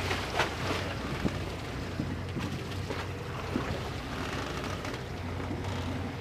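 Boat engines idling in a steady low hum, with water sloshing between the two hulls and wind noise on the microphone. A few short knocks sound in the first second.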